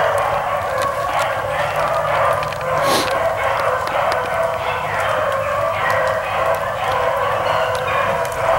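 A pack of beagles baying continuously, several hound voices overlapping, as the hounds run a rabbit.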